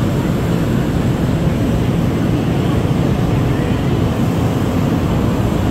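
Steady low rumble and hiss of an NJ Transit commuter train standing at an underground station platform.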